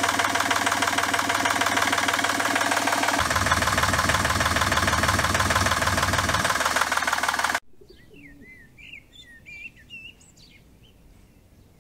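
Three-cylinder raw-water-cooled Volvo Penta marine diesel running with a steady, fast clatter; its low end gets heavier about three seconds in. It stops abruptly after about seven and a half seconds, and faint bird chirps follow.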